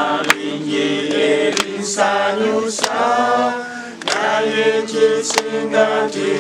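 A small group of people singing together unaccompanied, clapping their hands along, with a few sharp claps standing out.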